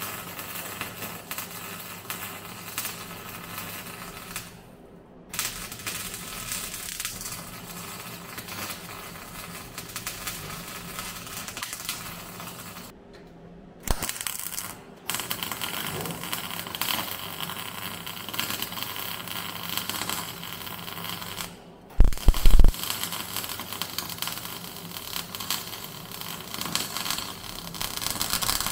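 MIG welder arc crackling and spitting while welding a steel brace bar into a car body shell, in several runs with short pauses between them. A brief loud low thump comes about three-quarters of the way through.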